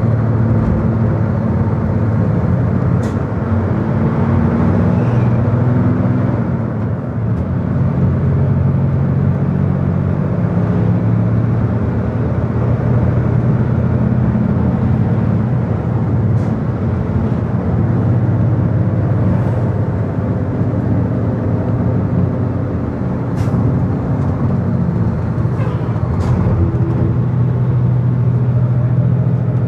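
Car engine and tyre noise from inside a moving car: a steady drone whose engine note shifts slightly up and down as it travels downhill on a winding road.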